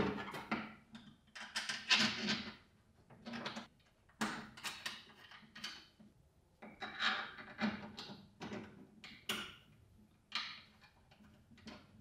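Hands working a zip tie through the flange of a 3D-printed plastic exhaust duct pressed against a laser's sheet-metal cabinet: irregular plastic scrapes, rustles and sharp clicks in short bursts.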